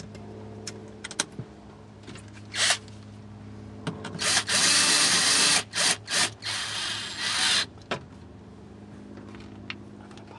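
Tape being pulled off a roll: a short rip, then a loud, long tearing noise in several pulls with brief breaks.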